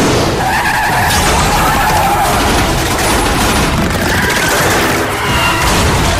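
Movie sound-effects mix of car engines running hard and tyres skidding, loud and dense, with a few wavering squeals.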